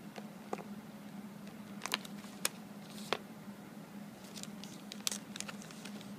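Thin plastic chocolate tray crackling and clicking at uneven moments as fingers pick through the chocolates, over a low steady hum.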